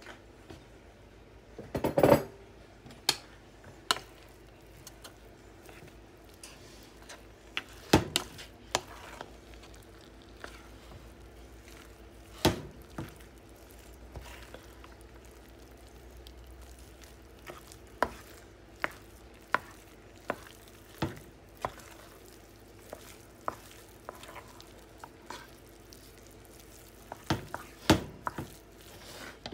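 A utensil stirring shredded and cubed cheese in a glass mixing bowl, with soft scraping and irregular clinks and knocks against the bowl every few seconds. A faint steady hum runs underneath.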